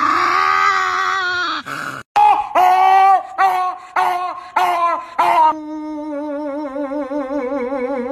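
A dog howling: one long drawn-out howl, then a run of about five shorter, wavering howls. From about two-thirds of the way in, background music with a held, wavering note takes over.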